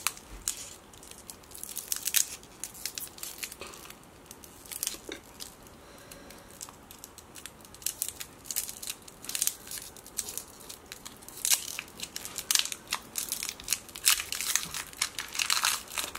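Twisted wrapper of a Sour Pops lollipop crinkling as it is unwrapped by hand, in irregular crackles that come thickest near the end.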